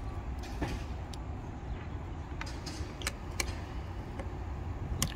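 A handful of short, sharp metallic clicks and taps from a Knipex pliers wrench being set and adjusted on a hex nut, over a steady low rumble of traffic.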